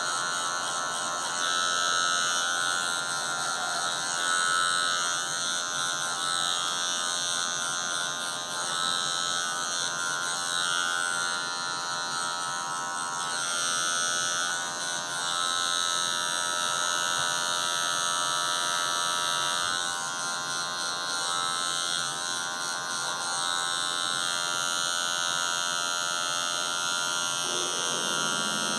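Electric hair clipper running with a steady buzz while blending a fade. The hiss of the blades through the hair rises and falls with each pass.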